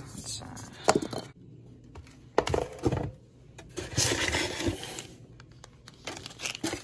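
Unboxing handling noise: hands pulling parts out of a styrofoam packaging insert, with irregular scrapes, knocks and rustles of foam and a plastic bag, including a longer rustle about four seconds in.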